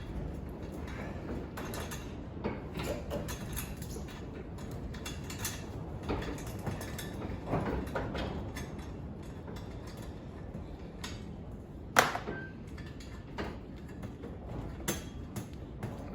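Metal handling sounds as a stainless steel exhaust pipe and a bolt-on alignment clamp are fitted together: scattered light clinks and scrapes, with one sharp metal knock about twelve seconds in.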